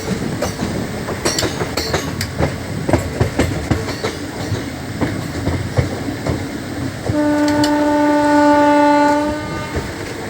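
Passenger train running, its wheels clattering over rail joints, with a train horn sounding one steady blast of about two and a half seconds about seven seconds in.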